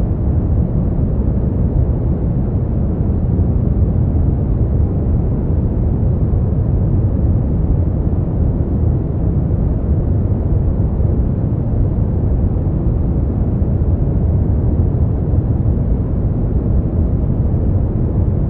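Synthetic brown noise: a steady, deep rumbling hiss with most of its weight in the low end and little above the mid range, unchanging throughout.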